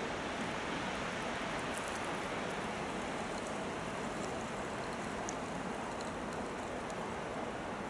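Steady rushing noise of a winter storm, with a few faint ticks scattered through it.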